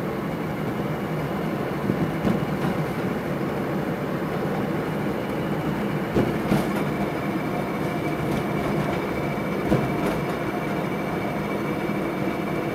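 Steady rumble and rattle inside the cabin of a Chevrolet Chevette being towed behind a pickup, with a few knocks and clunks. A thin steady whine joins about halfway.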